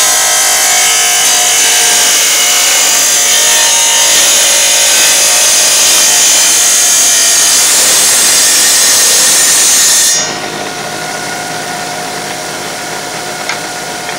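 Tile saw blade cutting through a tile with a loud, hissing grind; about ten seconds in the cut ends and the saw runs on free at a lower, steady level, with a single click near the end.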